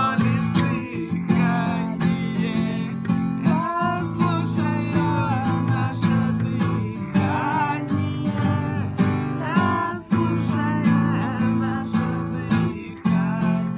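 Music: acoustic guitar strummed over a low, steady didgeridoo drone that drops out briefly about every three seconds, with a voice singing the melody.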